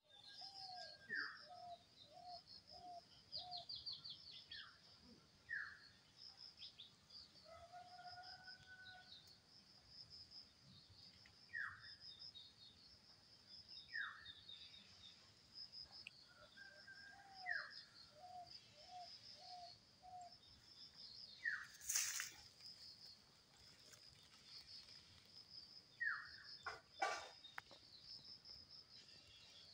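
Faint bird calls: short downward-sweeping calls and runs of four or five quick notes, repeating every few seconds over a constant high chirping, with one sharp click about two-thirds of the way through.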